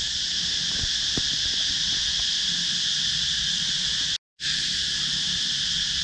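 Cicadas in the trees, a steady, continuous high-pitched buzzing chorus. The sound cuts out completely for a moment about four seconds in.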